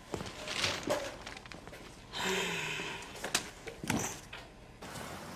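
Several knocks and clatters, with a short rush of noise about two seconds in.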